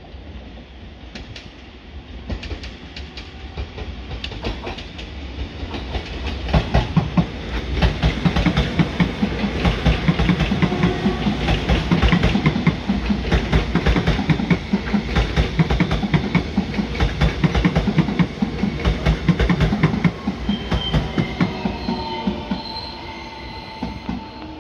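Taiwan Railway electric multiple-unit commuter train running past on the station tracks, its wheels clattering over rail joints and points. It grows loud about six seconds in and fades after about twenty seconds, and a high-pitched wheel squeal sets in near the end.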